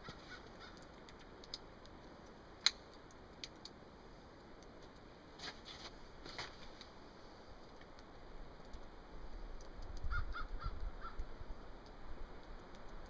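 Sharp metallic clicks from a Thompson/Center Contender Super 14 single-shot pistol being handled and readied on the rest, the loudest click a few seconds in and softer ones a few seconds later. Near the end there is a low rumble and four short distant calls, like a bird.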